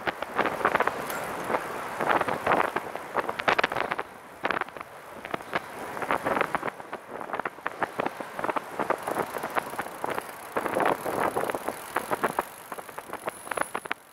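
Catrike 700 recumbent trike being ridden on the road: a dense, irregular run of rattles and clicks from the trike rolling over the pavement, with some wind noise.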